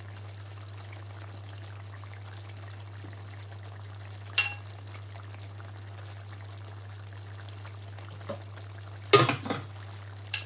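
A few sharp clinks of a spoon against the rice cooker's pot and a ceramic bowl as rice is dished out: one ringing clink about four seconds in, and a quick cluster near the end. A steady low hum runs underneath.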